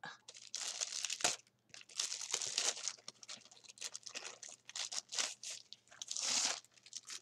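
Crinkling and rustling of a rolled diamond-painting canvas and its packaging being unwrapped and handled, in irregular bursts with a few sharp crackles.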